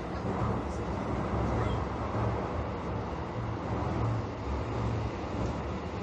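Toei Asakusa Line 5500 series electric train running through a tunnel, heard from inside the front car: a steady low rumble of wheels and running gear on the rails.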